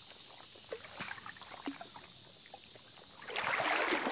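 Water sloshing and splashing as a person wades through deep swamp water: a few small drips and splashes at first, then louder sloshing about three seconds in as the legs push through the water.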